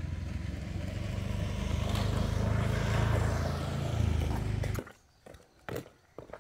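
Motorbike engine running steadily, growing louder toward the middle, then cutting off abruptly near the end, followed by a few light knocks.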